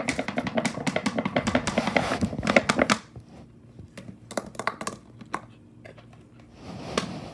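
A plastic bottle crackling and crinkling as a husky puppy bites and gnaws at it: a rapid run of crackles for about three seconds, then only scattered clicks.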